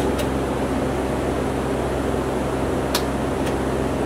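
A steady low machine hum over an even noise, with three faint ticks.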